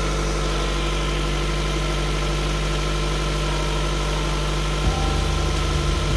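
Car engine idling steadily, its low hum shifting slightly about five seconds in.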